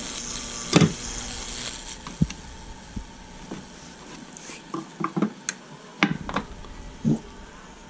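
High-voltage Lichtenberg burning on a wooden gunstock, powered by a neon light ballast: a steady electrical hiss and hum for the first couple of seconds, with sharp crackles and pops as the current burns through the wood. A cluster of pops comes between about four and a half and seven seconds.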